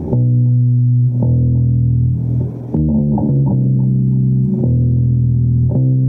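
Electric bass guitar playing a slow line of low notes, each held for one to two seconds, with a few quick notes about three seconds in.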